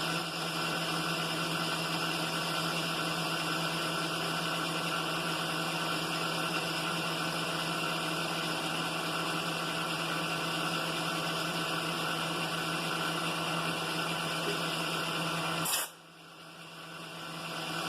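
Steady running of a milling machine's boring head taking a light finishing cut at 250 RPM, mixed with a shop air compressor running. Near the end the steady noise stops abruptly with a click, leaving a much quieter hum.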